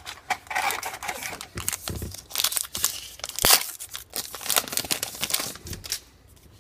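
Trading card pack wrapper being torn open and crinkled by hand, an irregular papery-plastic crackle with one sharp crack about halfway through.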